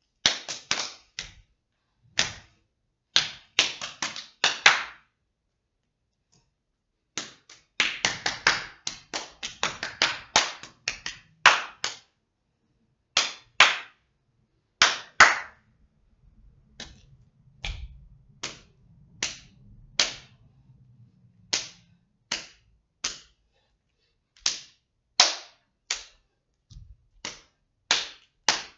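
Sharp hand claps and slaps of body percussion, in an uneven rhythm. Quick runs of several strokes alternate with single strokes and short pauses.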